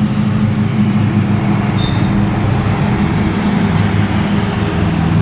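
Electric polisher (buffer) motor running steadily, its pad working rubbing compound into a car's clear coat for the final buff.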